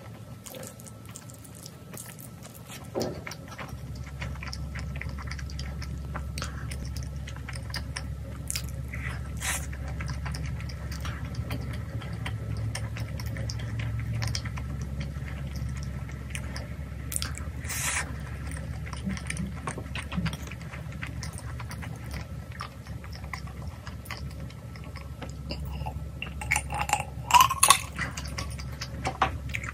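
Close-miked chewing and mouth sounds of someone eating spicy tteokbokki, with short clicks of a spoon and chopsticks against a small bowl, over a steady low hum. Near the end come a few louder sharp sounds as she drinks from a glass.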